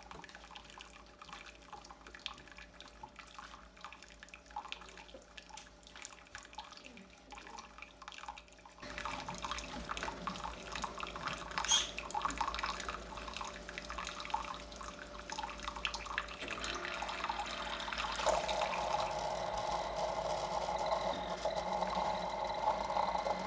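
Keurig K-Express single-serve coffee maker near the end of a water-only cleaning brew: hot water trickling and dripping into a glass jug. About nine seconds in, the machine's running noise gets louder, and it grows again to a fuller steady sound from about eighteen seconds on.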